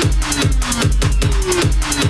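Electronic dance music with a fast, steady kick drum, busy hi-hats and short falling synth lines.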